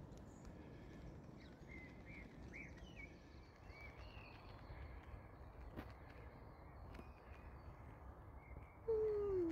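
Outdoor riverside ambience: a low steady rumble with faint bird chirps. Near the end comes one short, loud call that falls in pitch.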